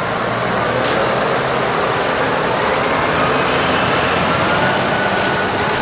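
New Holland T7.270 tractor's six-cylinder diesel engine running steadily as the tractor drives off, with a faint thin whistle over the engine noise in the second half.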